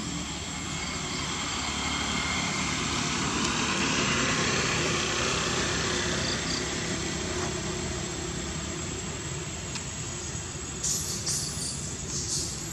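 A motor vehicle's engine hum, swelling to a peak and slowly fading as it passes, with high insect chirps starting near the end.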